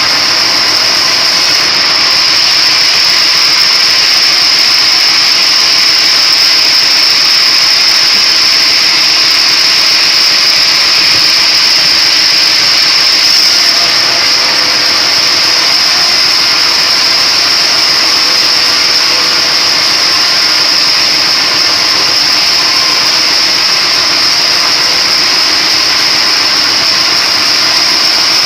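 A splitting machine running steadily at constant speed, with a loud, even high-pitched whine over a continuous mechanical noise.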